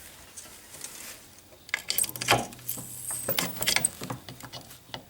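Clicks and light clatter of a plastic extension cord and plug being handled, with a few sharp knocks about two seconds in and again about a second later.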